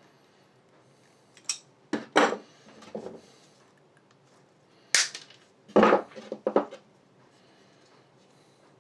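Sharp metallic clicks and clinks of pliers and side cutters working a thin wire, in two clusters: several a little after the first second and more from about five seconds in.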